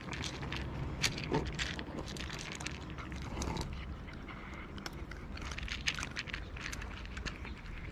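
Cats eating, with irregular wet chewing and crunching clicks over a low steady background rumble.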